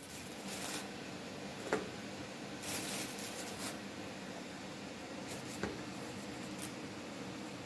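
Soft rustling and scraping as flour is scooped out of a plastic bag with a china plate and tipped into a metal sieve, with a couple of light clicks, over a steady low hum.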